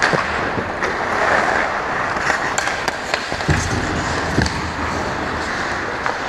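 Ice hockey skates scraping and carving on the ice, with sticks clacking and the puck being hit several times, and two heavier knocks about three and a half and four and a half seconds in.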